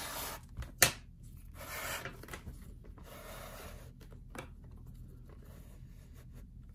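Leather lace being drawn through the leather loops of a baseball glove web with a metal lacing needle: a few rubbing, rustling strokes of leather sliding on leather, with one sharp click about a second in.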